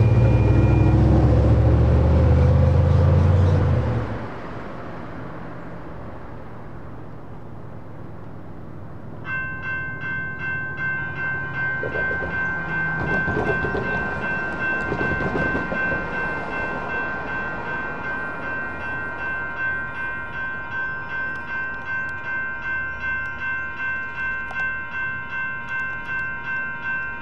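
Road traffic passes close with a loud low rumble for the first few seconds. About nine seconds in, a railroad crossing's electronic warning bell starts ringing: a high, repeating ding that keeps an even beat as the crossing activates.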